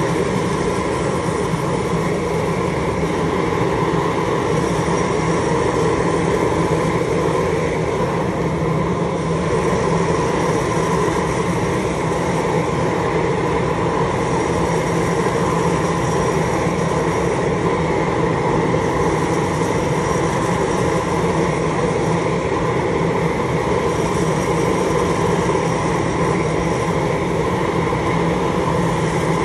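Gas-fired rotating wire-mesh drum chile roaster running, its burners and turning drum giving a loud, steady rumbling noise as green chiles tumble and roast inside.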